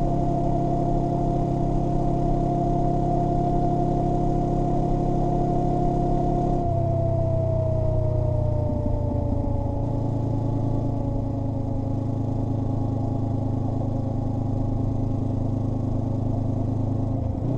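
Honda NX500's parallel-twin engine running through a Black Widow 300SS slip-on exhaust while riding at a fairly steady speed. A quiet, near-stock note with a knobby rear tyre humming. About seven seconds in, the engine note steps lower and a whine slides down in pitch.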